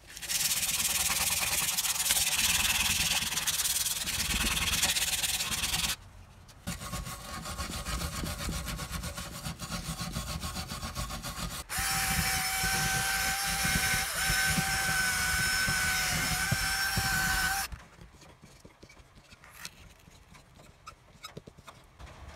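Stiff brush scrubbed by hand over a cast aluminium Toyota 7A-FE valve cover, a rough rasping in three stretches split by abrupt cuts, the middle one quieter. The last few seconds are much quieter, with a few light clicks.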